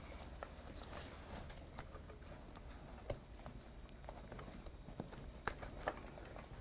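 Faint handling sounds as the sling's shoulder loops are hooked onto the Hoyer lift's swivel bar: light rustling of the sling straps and scattered small clicks, the sharpest about halfway through and a few more near the end.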